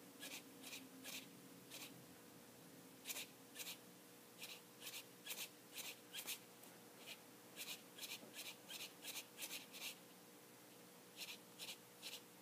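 Faint scratchy strokes of a Copic Sketch marker nib flicked across paper: many short, quick strokes, often in pairs, with pauses between clusters.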